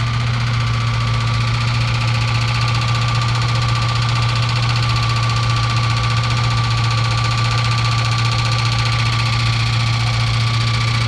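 2003 Mustang Cobra's engine running with a loud, steady drone and a steady whine over it, unchanging throughout. This is the horrendous under-hood noise that comes only with the AC switched on; the owner is stumped, since it began after he changed the power steering fluid.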